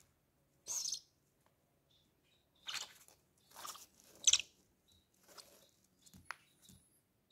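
Owl chicks giving short raspy, hissing begging calls during hand-feeding, about five bursts spread over a few seconds, with a few faint clicks near the end.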